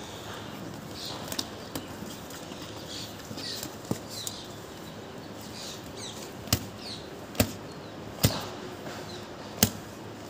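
A pit bull puppy tugging and shaking a hanging rubber motorcycle inner tube: a few sharp snaps and slaps, four loud ones in the second half, with softer ones earlier. Small birds chirp in the background.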